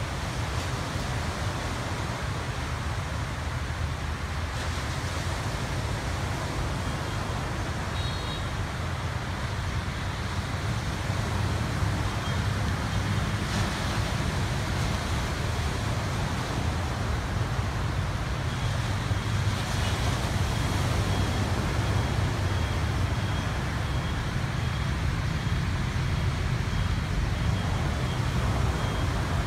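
Steady low outdoor rumble with no voices, a little louder about a third of the way in. A faint, high, evenly repeating pip comes in during the last ten seconds.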